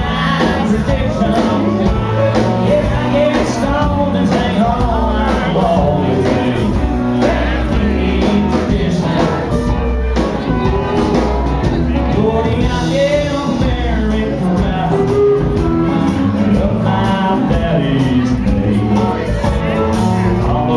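Live country band playing loudly, with electric guitar and pedal steel guitar over a steady bass and drum backing.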